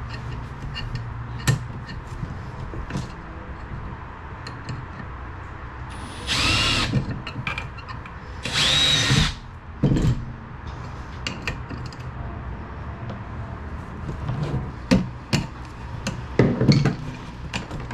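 Power drill run in two short bursts of about a second each, its whine rising and then falling in pitch, amid scattered clicks and knocks of hardware being handled.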